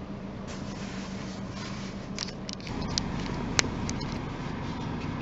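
Peugeot 508 running: a steady low rumble that grows a little louder about two and a half seconds in, with a few short clicks and scrapes and one sharp tick about three and a half seconds in.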